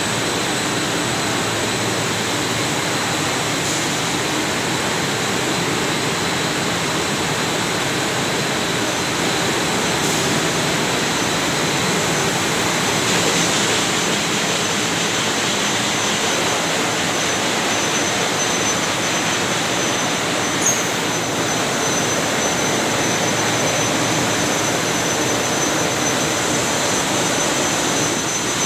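Textile double jigger dyeing machines and their electric drive motors running in a dye house: a constant, even rushing noise with a thin, steady high-pitched whine over it, and one small click about two-thirds of the way through.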